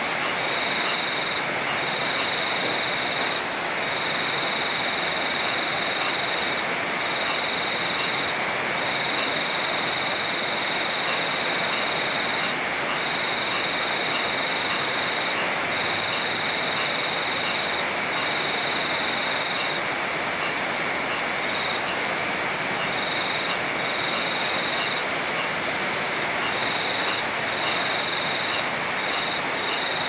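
Heavy rain with rushing river water: a steady, even hiss. A thin high whine comes and goes in short runs over it throughout.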